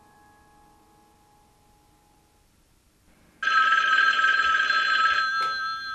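Corded desk telephone ringing once, a loud electronic ring of two steady tones that starts about three and a half seconds in, holds under two seconds and then fades. Before it the last notes of chime-like music die away, and a click follows the ring near the end.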